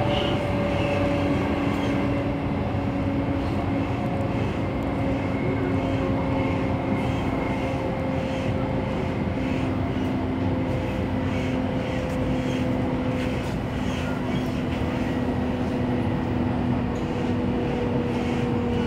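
Steady running noise inside the car of an MTR A-Train electric multiple unit travelling at speed: wheels rumbling on the rails, with a faint motor whine that slowly drops in pitch.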